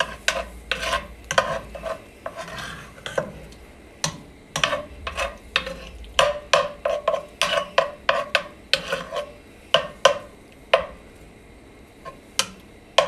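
A slotted spoon stirring butter cubes and minced garlic in a nonstick pan, scraping and knocking against the pan in quick, irregular clicks, several a second.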